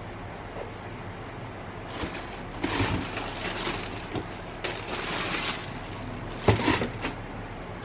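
Tissue paper rustling and crinkling as a sneaker is handled in its cardboard shoebox, in irregular bursts with a sharper knock near the end. A steady low hum runs underneath.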